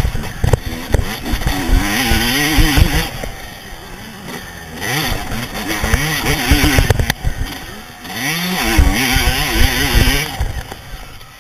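Motocross bike engine revving hard on a dirt track, its pitch climbing and dropping over and over with three louder bursts of throttle, heard from a camera mounted over the handlebars.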